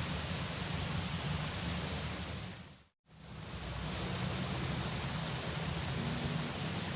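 Steady rushing of river water, an even noise with no pitch; it fades out to silence for an instant about three seconds in, then fades back up.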